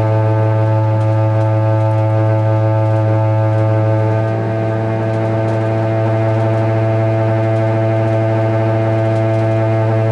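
Loud, steady, low-pitched drone from the shower plumbing upstairs, one held note with many overtones, like a foghorn. It dips slightly in loudness about four seconds in.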